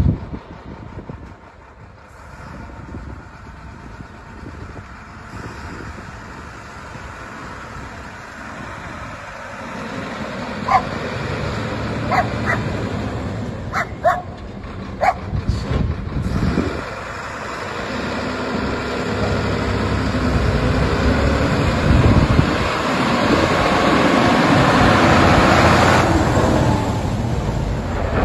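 Sinotruk HOWO dump truck's WD615.47 inline-six turbodiesel running as the truck drives, growing louder as it comes close. A dog barks several times about halfway through.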